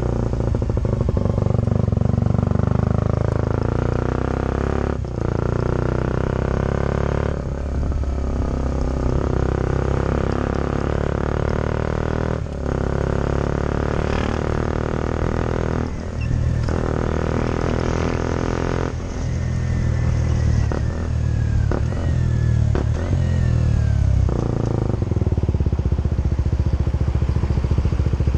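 KTM 125 Duke's single-cylinder four-stroke engine running under way, pulling through the gears with a brief dip in the engine note at each of about five gear changes. In the second half the revs fall away in several steps as it slows, then it runs on at a steady lower note.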